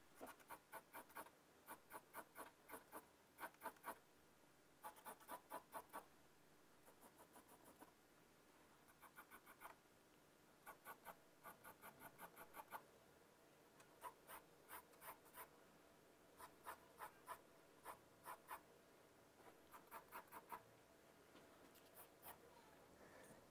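Pencil scratching on drawing paper, faint, in short runs of quick back-and-forth strokes, several a second, with brief pauses between runs. The strokes go over the same lines repeatedly to darken them.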